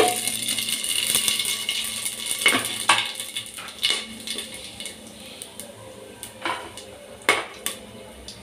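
Whole spices tipped into hot oil in an aluminium pressure cooker, frying as the first tempering step: a dense sizzle for the first two or three seconds that dies down to scattered sharp crackles and pops.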